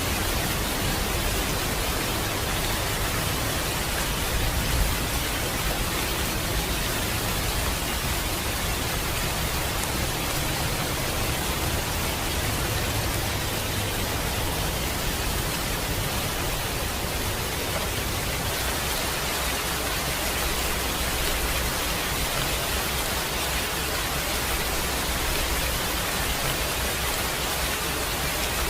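Steady rain, an even, dense hiss with a low rumble underneath that eases a little about two-thirds of the way through.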